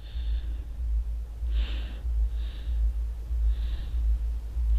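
Steel spoon stirring and scraping bread cubes across a non-stick kadai as they toast in butter: five short, soft scrapes about a second apart, over a steady low hum.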